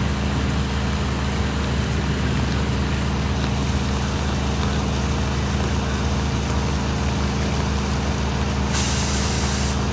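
Fire truck's diesel engine running steadily at idle, with a short hiss of air lasting about a second near the end.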